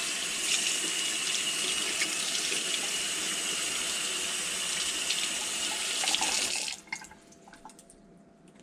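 Running water rinsing fish fillets, a steady rush that is shut off abruptly after about seven seconds, followed by a few faint clicks of handling.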